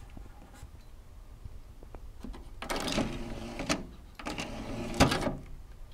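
Pioneer PD-4050 CD player's motorized disc tray whirring out, then after a short pause whirring back in and seating with a clunk. Each run lasts about a second, and the closing clunk is the loudest sound.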